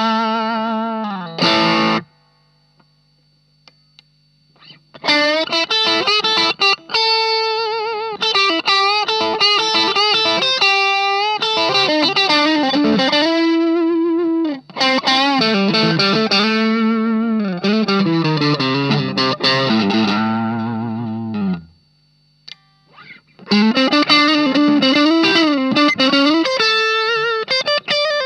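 Electric guitar (Fender Stratocaster) through an Ibanez Tube Screamer Mini overdrive pedal into a Marshall MG15 amp, playing overdriven single-note lead phrases with string bends and vibrato. The playing stops twice briefly, leaving a low steady amp hum.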